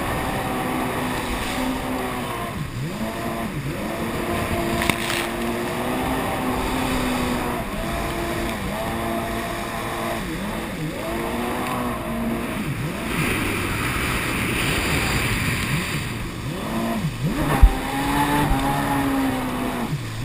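Kawasaki Jet Ski personal watercraft engine running hard. Its pitch dips and climbs again and again as the throttle is eased and reopened through tight turns, over the hiss of water spray. A single sharp thump comes near the end.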